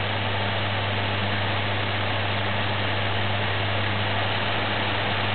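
Electric fan running steadily: a constant low hum with an even rush of air noise.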